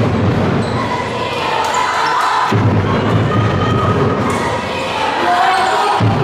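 Handball bouncing on a sports-hall court, with the hall's echo and steady background noise from the stands.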